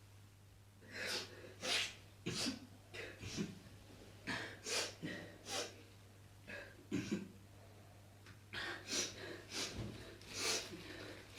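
A person breathing in short, noisy breaths, roughly two a second and irregular, over a low steady hum.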